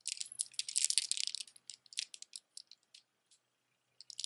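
Faux pearl beads of a multi-strand necklace clicking and rattling against each other as it is handled: a dense clatter for about the first second, then scattered clicks that thin out, with a few more near the end.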